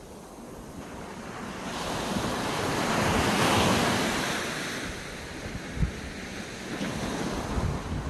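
Small sea waves breaking and washing up a sandy beach. One wave's rush swells from about two seconds in and dies away by about five seconds. Wind buffets the microphone with a few low thumps in the second half.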